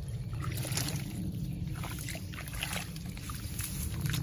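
Hands scooping and slapping wet mud and water to plaster up a gap in a ditch bank: a run of small irregular splashes and squelches over a steady low rumble.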